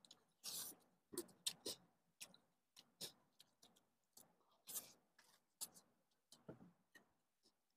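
Faint eating sounds of biryani eaten by hand: short, irregular chewing and mouth smacks, with fingers working rice on steel platters.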